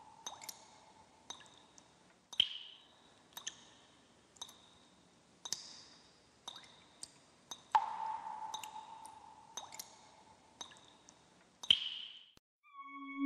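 A slow run of sharp ticks, about one a second, a few of them trailing a short ringing tone.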